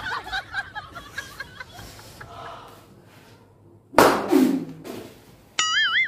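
A stick striking a man's backside once about four seconds in, a sharp slap of a stroke, followed by a short low vocal sound. Laughter is heard early on, and near the end a high warbling tone starts.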